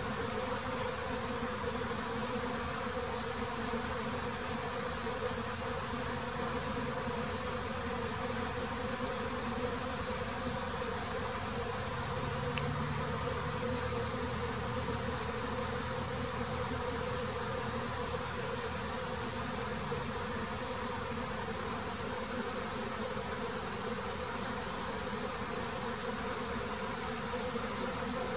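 Honeybee colony buzzing, many bees humming together in a steady, unbroken drone.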